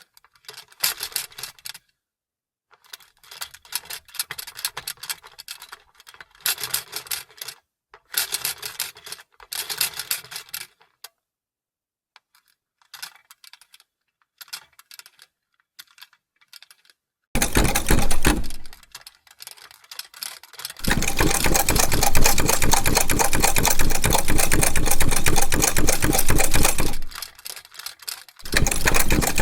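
Vintage sewing machine: for the first half, short scattered bursts of light clicking and rattling. About 17 seconds in it starts stitching in fast, even ticking runs: a short run, a pause, a long run of about six seconds, a brief stop, then stitching again near the end.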